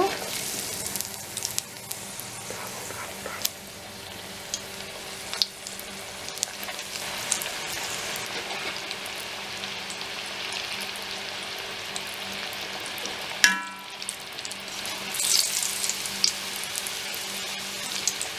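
Corn-flour-coated chicken pieces deep-frying in hot oil, a steady sizzle full of small pops and crackles. About two-thirds of the way through there is one sharp clink with a brief ring.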